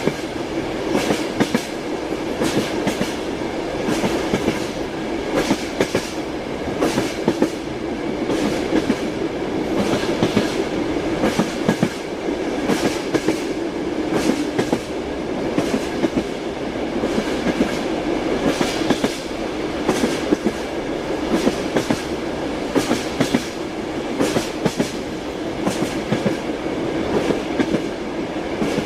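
Train wheels clattering over the rail joints in a steady repeating rhythm, over the continuous rumble of a moving railway carriage.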